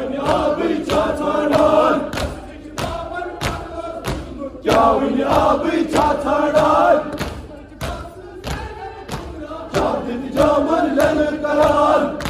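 A crowd of men chanting a noha together in loud phrases, with quieter stretches between, over a steady beat of matam: hands striking chests in unison, roughly two strikes a second.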